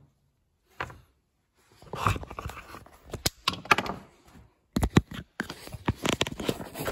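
Handling noise as the recording camera is picked up and moved about: a knock about a second in, then irregular rubbing, scraping and sharp clicks and knocks, loudest near five seconds.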